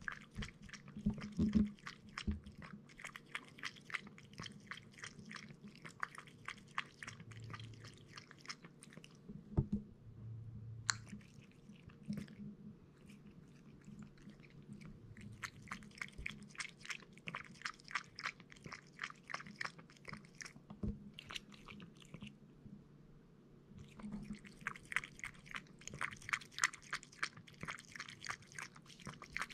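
Somali cat lapping milk from a ceramic bowl: quick, even wet tongue-laps in runs, broken by a few short pauses when it lifts its head. A couple of louder thumps come about a second and a half in and near the ten-second mark.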